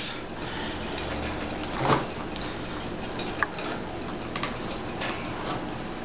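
A small hand tool rubbing and pressing wet leather as it is molded around a multi-tool, with a short scuff about two seconds in and a few light clicks, over a steady hiss.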